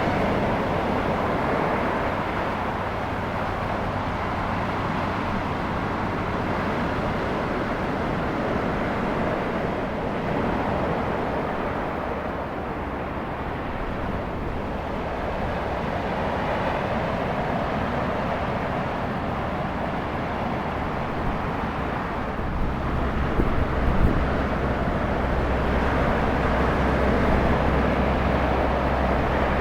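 Ocean surf breaking and washing on the beach, a steady wash of noise that swells and eases slowly. A low rumble joins about three quarters of the way through.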